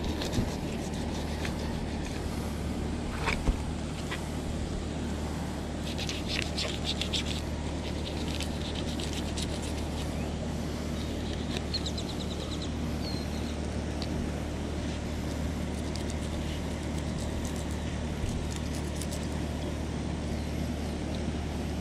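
A steady low mechanical hum with faint scraping and clicks of a fillet knife cutting a sheepshead on a wooden board; a burst of quick high ticks about six seconds in and a few faint high chirps about twelve seconds in.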